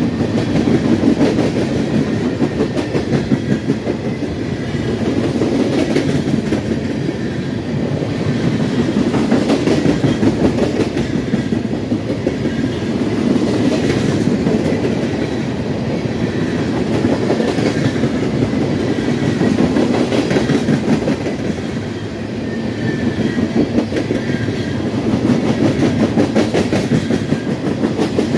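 CSX freight train's tank cars and covered hoppers rolling past at speed: a steady rumble with rapid clickety-clack of steel wheels over the rail joints, the loudness swelling and easing in slow waves as the cars go by.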